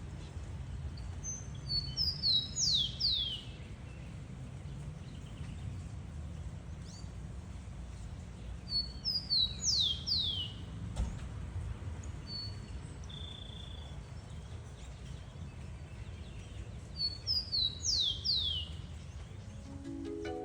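Rufous-collared sparrow (tico-tico) singing three times, each song a few short high notes followed by quick descending slurred notes, over a steady low background rumble.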